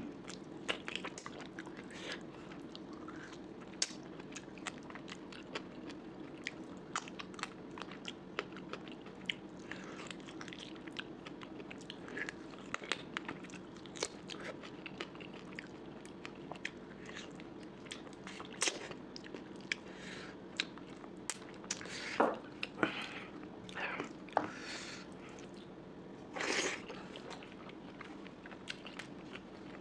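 Close-miked mouth sounds of a person eating curry with rice: repeated biting, chewing and crunching with wet clicks, a few louder crunches near the end, over a steady low hum.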